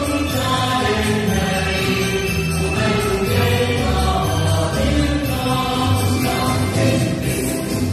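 A song with a steady beat and group singing, played for a pom-pom dance.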